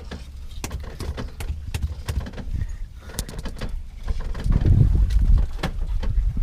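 A knife clicking and scraping against fish on a cutting board during filleting, over a low steady rumble that grows louder about four and a half seconds in.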